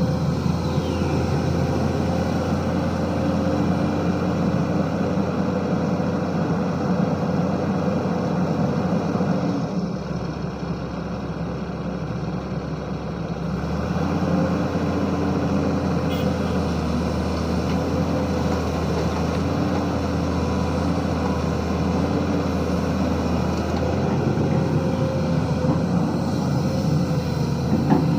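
Diesel engine of a SANY SY215C hydraulic excavator running steadily under load, easing off about ten seconds in for a few seconds before picking up again.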